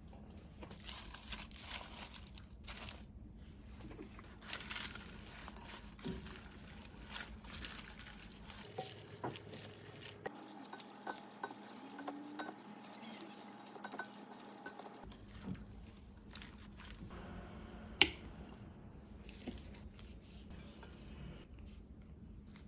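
Food-preparation handling sounds: rustling and crinkling, soft squishing and light clicks and knocks of utensils and dishes, with one sharp click late on.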